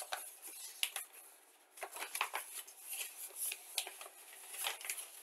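Paper rustling and crinkling as a model kit's instruction sheet is handled and turned, with scattered light irregular clicks.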